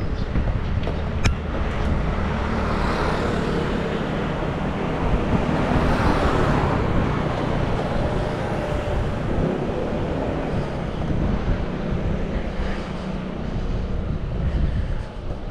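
A motor vehicle passing close on the road, its sound swelling to a peak about six seconds in and then fading, over a steady low rumble of wind on the camera microphone while riding.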